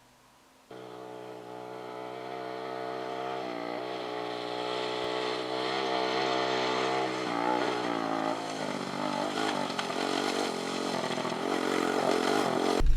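A motor vehicle's engine starts up suddenly and runs steadily, its pitch shifting slightly now and then. It grows louder and rougher as it comes closer.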